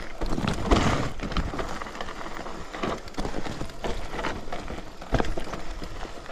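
Focus JAM² electric mountain bike rolling downhill over a rocky trail: a steady rush of noise with irregular knocks and rattles as the wheels hit stones.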